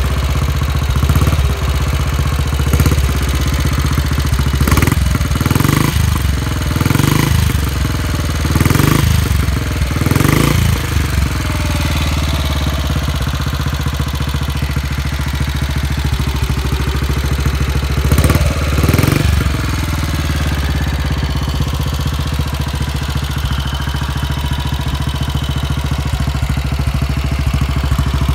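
1952 BSA C11's 249 cc single-cylinder overhead-valve engine running. It is blipped with the throttle in quick revs every second or two over the first ten seconds and twice more about two-thirds of the way through, otherwise idling steadily.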